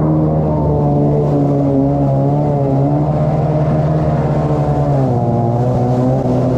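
Dirt bike engine running under steady throttle while riding. Its pitch holds level, then dips and climbs back about five seconds in as the throttle is eased off and opened again.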